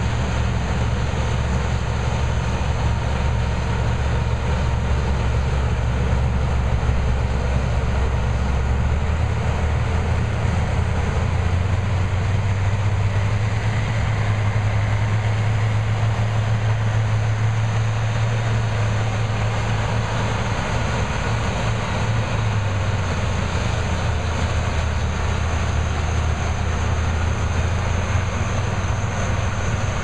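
Rice combine harvester and the tractor pulling a bankout wagon running close by: a loud, steady diesel engine drone over a constant mechanical rush. The low hum steps up in pitch about ten seconds in and drops back later.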